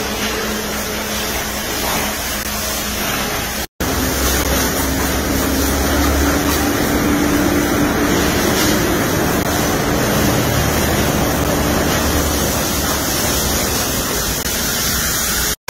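Pressure washer spraying water onto a van's bodywork: a steady, loud hiss with a low hum under it. It cuts out for a moment about four seconds in and again at the very end.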